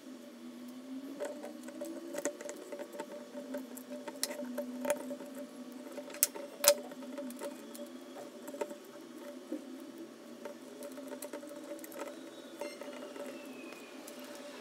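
Light clicks and taps of small parts being handled, with two sharper clicks about six and a half seconds in, over a steady low hum that wavers in pitch.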